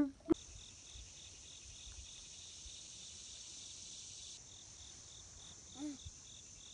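Insect chorus: a steady, faint high hiss with a chirp pulsing about twice a second; part of the hiss drops out about two-thirds of the way through.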